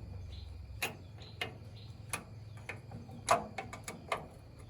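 Irregular light knocks and clicks, about seven in four and a half seconds and unevenly spaced, the loudest a little past three seconds in, over a faint low hum.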